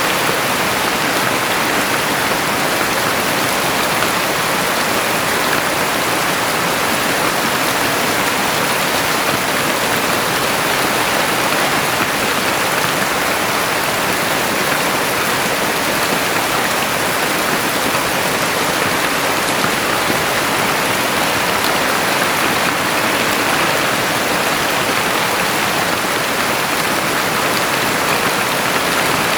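Heavy rain falling steadily, a dense even hiss of drops with no pauses or changes.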